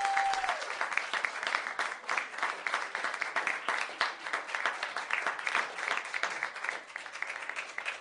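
Canned audience applause, a dense patter of many quick claps, slowly getting quieter. A held tone left over from just before fades out about half a second in.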